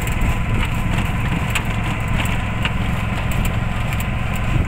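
Vehicle engine running steadily with a low, even drone.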